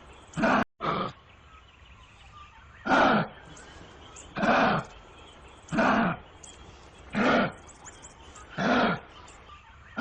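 Kangaroo giving a series of short, harsh calls, about one every second and a half, seven in all. The sound drops out briefly just after the first call.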